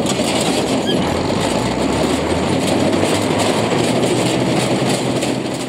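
Bizon Z056 combine harvester and a New Holland tractor running at close range: a steady, dense mechanical clatter over a low engine hum.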